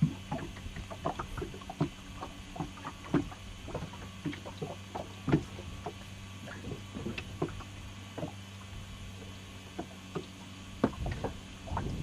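Scattered light knocks and clicks of gear being handled in a fishing boat, over a steady low hum. Near the end a low rumbling noise comes in.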